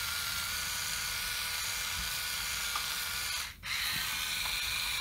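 Hurricane Spin Duster's small electric motor running, spinning its mini duster head with a steady whine. It cuts out briefly about three and a half seconds in, then runs again.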